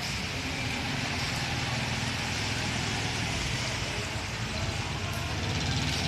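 A motor vehicle engine running steadily on the flooded street, getting louder near the end as it draws closer, over a steady hiss.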